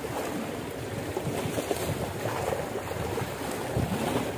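Seawater washing against shoreline rocks, with wind buffeting the microphone: a steady, rushing noise.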